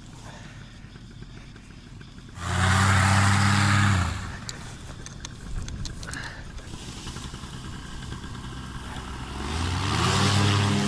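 Paramotor engine blipped hard for about a second and a half, dropping back to a low idle, then revving up with a steady rise in pitch near the end as it builds toward takeoff power.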